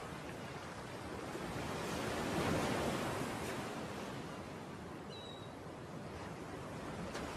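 Sea surf washing onto a shore, one wave surging louder about two and a half seconds in before easing off.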